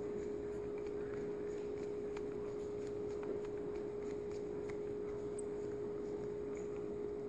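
A steady hum on one tone, with a few faint light ticks as a metal RC boat strut is handled and adjusted.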